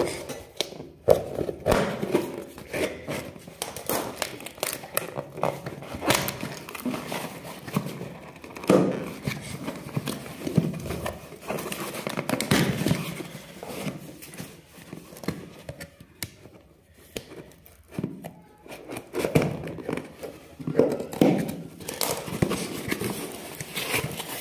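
Hands tearing packing tape and pulling open a cardboard shipping box, with irregular rips, scrapes and crinkling of cardboard and paper.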